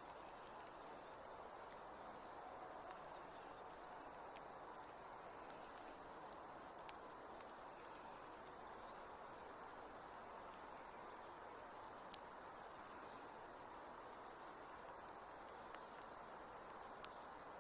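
Faint outdoor ambience: a steady low hiss with a few faint, high, short bird chirps and two sharp clicks in the second half.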